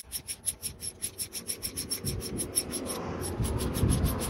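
Small hand ratchet with a deep 10 mm socket clicking quickly and evenly, about eight clicks a second, with a short break about three seconds in, as it runs down a worm-drive hose clamp on a coolant hose.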